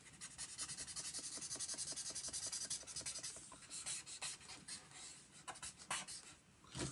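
Felt-tip marker scratching back and forth on sketchbook paper as a shape is coloured in red: quick, even strokes at about seven a second for the first three seconds, then slower, scattered strokes, with a short louder sound near the end.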